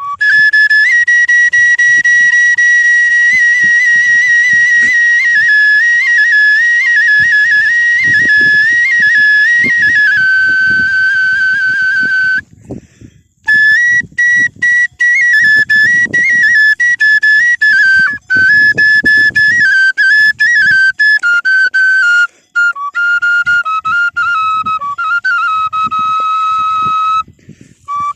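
A flute playing a wavering, ornamented melody, with two short breaks in the playing. Faint irregular low knocks and rumbles run underneath.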